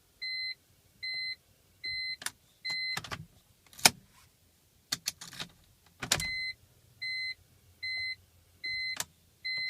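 2002 BMW 325i's warning beeps sounding at key-on, a steady series of short two-tone beeps that stops about 3 seconds in and starts again about 6 seconds in, with a few sharp clicks in between. No starter cranking is heard: the car will not turn over.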